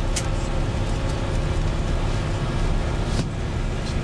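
Tour bus running along a road, heard from inside the cabin: a steady low rumble of engine and road noise with a faint steady hum, and two brief sharp rattles, one just after the start and one about three seconds in.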